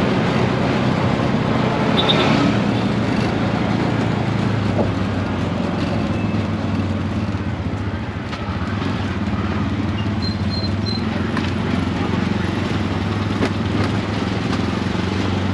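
Auto-rickshaw (keke) engine running steadily under way, with road noise from the ride. A few faint high chirps come briefly about two seconds in and again around ten seconds.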